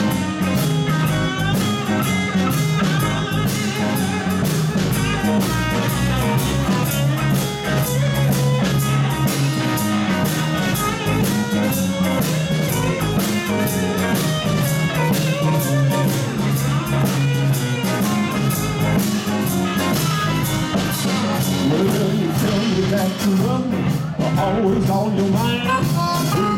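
Live blues band playing an instrumental passage: electric guitars and a drum kit keep a steady beat, with blues harmonica played through a vocal microphone.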